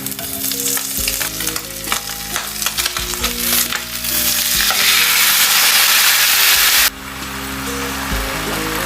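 Food frying in a hot pan, crackling and sizzling. About halfway through it swells into a louder, steady sizzle that drops off suddenly near the end.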